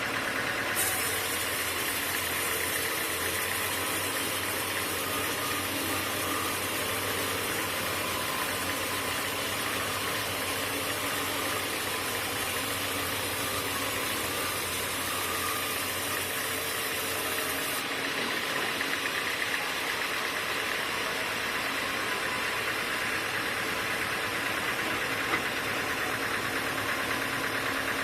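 Sawmill machinery running steadily. A high hiss joins in about a second in and stops about two-thirds of the way through.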